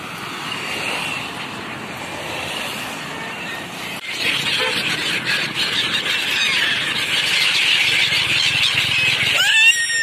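A large flock of gulls calling over water: a dense chorus of many overlapping cries that comes in suddenly about four seconds in. One close, loud call stands out near the end.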